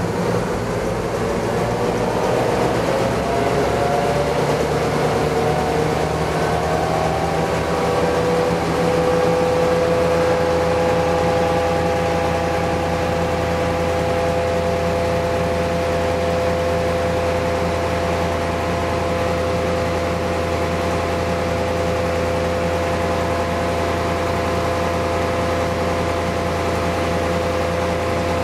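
The tug's EMD 16-567CCL engine, a Roots-blown sixteen-cylinder two-stroke diesel, revs up as the tug gets under way. A whine climbs in pitch over the first eight or nine seconds, then the engine runs steadily at the higher speed under a constant low drone.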